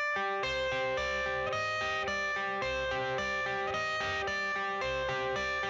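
Background music: a guitar-led instrumental intro playing a repeating riff over a steady beat, before any vocals come in.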